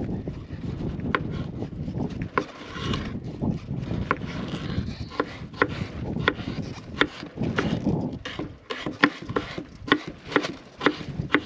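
Chef's knife chopping potato on a bamboo cutting board: sharp taps of the blade on the wood, a few spaced cuts with some scraping at first, then a steadier run of about two cuts a second.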